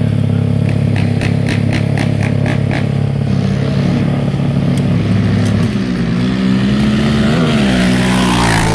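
ATV engines running: a steady low drone with a rapid string of sharp cracks one to three seconds in, then a quad's engine note rising and falling as it is blipped while riding past near the end.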